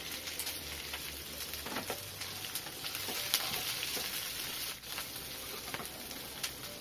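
Chopped onion and green chillies frying in hot oil over a mustard-seed and cumin tempering: a steady sizzle with scattered crackling pops, and a spatula stirring the pan near the end.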